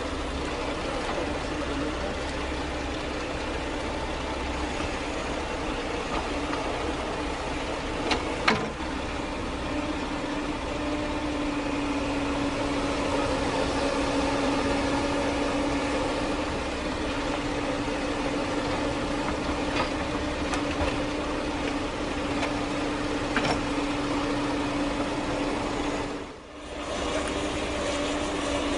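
Excavator's diesel engine running steadily, with a couple of sharp knocks about eight seconds in and a brief drop in level near the end.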